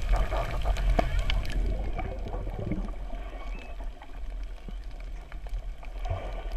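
Underwater sound picked up by a camera held below the surface on a reef: water gurgling and sloshing over a low rumble, with scattered sharp clicks.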